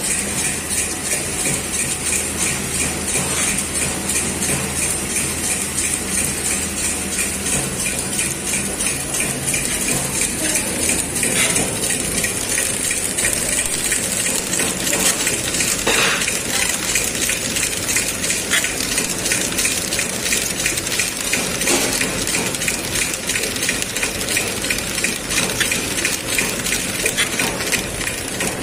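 Haitel HTL-A800 automatic horizontal plum packing machine running: a steady mechanical clatter of dense, rapid rattling and clicking, with a faint steady high whine above it.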